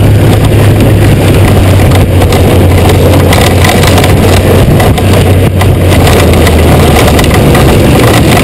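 Honda GoldWing 1500's flat-six engine running at a steady low note while the motorcycle is ridden along, picked up by a bike-mounted action camera with wind rushing over the microphone.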